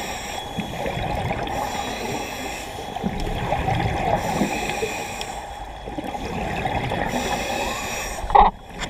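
Scuba regulator breathing and bubbling exhaust heard underwater, an uneven gurgling wash that swells and fades with each breath. A brief loud burst comes near the end.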